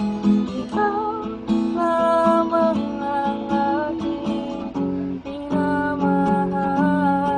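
Acoustic guitar strummed in a steady rhythm during an instrumental break between sung lines of a ballad, with sustained melody notes above the chords.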